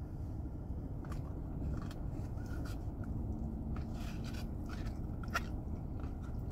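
A person biting into and chewing a Big Mac held in its cardboard box: scattered small clicks, crinkles and mouth sounds over a low steady rumble of the car cabin.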